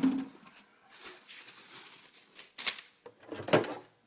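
Small parts being handled and set down on a work surface: a knock at the start, a second or so of rustling and scraping, then a sharp click and a short clatter near the end.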